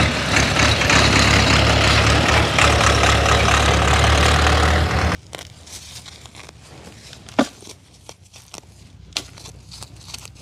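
Farm tractor engine running steadily with a heavy low rumble, cutting off suddenly after about five seconds. Then only soft clicks and rustles of hands working among garden plants.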